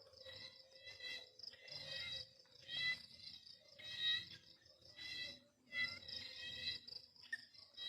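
Crickets chirping in repeated high-pitched bursts, each lasting about half a second to a second with brief pauses between.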